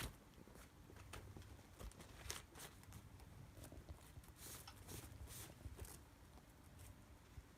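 Faint, scattered rustling and crinkling of a cat play tunnel as kittens scramble and paw in and around it, a cluster of brief rustles around the middle.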